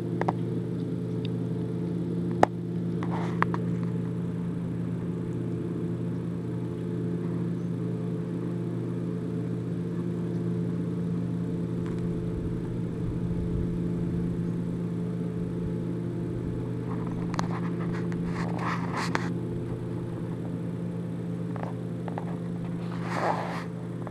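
Husky eating a whole raw chicken: scattered crunches and tearing of bones and feathers, with a sharp crack a couple of seconds in, a run of crunching about two-thirds through and more near the end. Under it runs a steady low mechanical hum.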